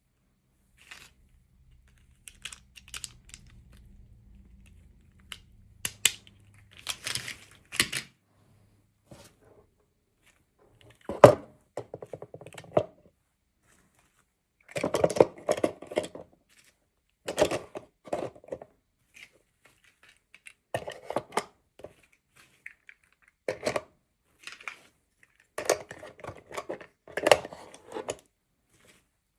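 Plastic toy packaging being handled and opened by hand: irregular clicks, taps and crinkling, with a single sharp click about eleven seconds in.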